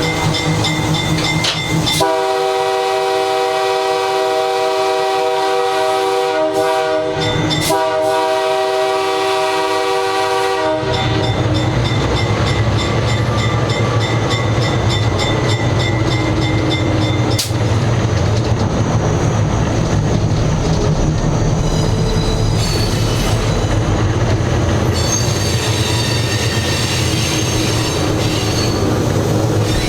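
Nathan K3H air horn on a GE 80-ton switcher sounding a long chord, broken twice by short gaps, then cutting off about eleven seconds in. After that the locomotive runs on with a low rumble and a high, steady squeal of its wheels on the rails.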